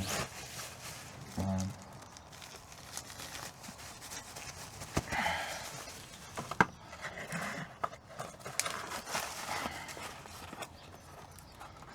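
Intermittent rustling and light knocks from packaging and parts being handled, with a sharp click about six and a half seconds in.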